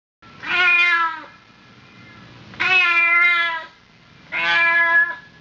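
Domestic cat meowing: three long, drawn-out meows of about a second each, a little over a second apart.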